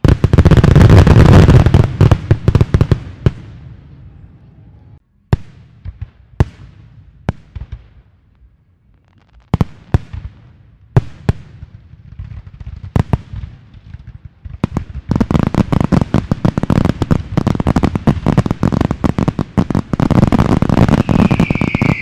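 Aerial fireworks going off: a sudden loud volley of bangs and crackle at the start that fades over a few seconds, then scattered single shell bursts, and from about two-thirds of the way in a dense run of rapid bangs and crackling.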